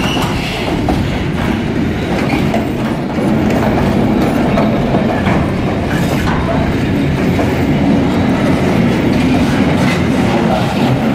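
Wheels of articulated container flat wagons of a passing freight train running on the rails: a steady rumble with clacks of the wheels over the rail joints. It gets a little louder about three seconds in.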